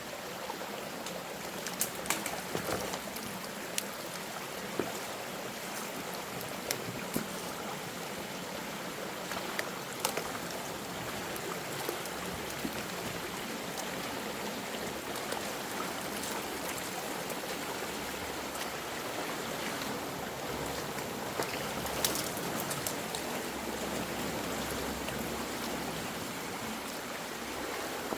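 Steady rush of water flowing through a partly blocked culvert in heavy rain, with a few sharp taps and knocks now and then.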